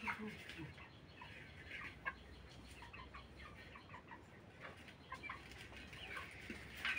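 Broiler chickens clucking softly: scattered short, faint calls.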